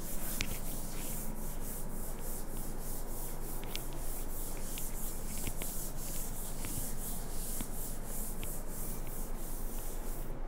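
A hand rubbing back and forth across an interactive whiteboard's screen to wipe off pen annotations: quick repeated hissing strokes, about three a second, with a few light ticks.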